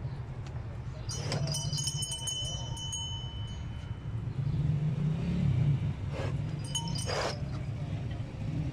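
Metal neck bells on cattle clinking and ringing in two spells, about a second in and again around six to seven seconds, over a steady low rumble.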